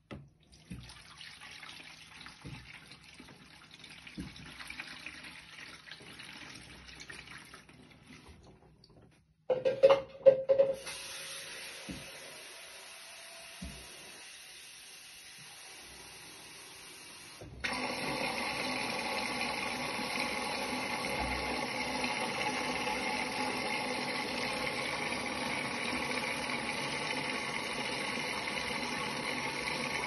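Bosch front-loading washing machine filling: water running into the drum, which becomes a louder, steady rush of incoming water about two-thirds of the way through. There are a few loud knocks about a third of the way in.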